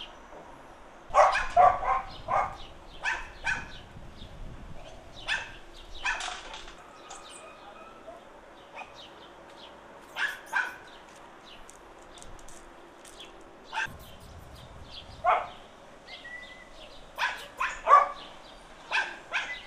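Dogs barking in short bouts: a quick run of barks about a second in, single barks and pairs through the middle, and another run near the end.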